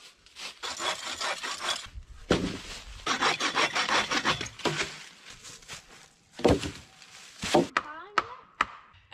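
Hand saw cutting through a log with rapid back-and-forth strokes, in two runs of a couple of seconds each. In the second half, several sharp knocks of wood being struck.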